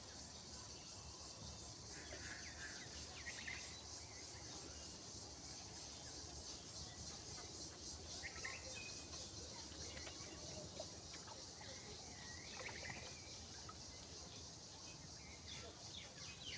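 Outdoor ambience: a steady, faint chorus of insects chirring with a fine rapid pulse, with a few short bird chirps over it, about two seconds in, around eight seconds in and again near twelve seconds.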